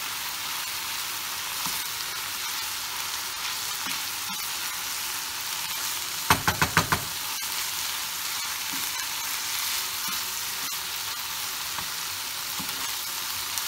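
Minced meat with peppers and tomato paste sizzling in a frying pan, stirred with a wooden spoon. A little past six seconds in comes a quick run of about five loud knocks.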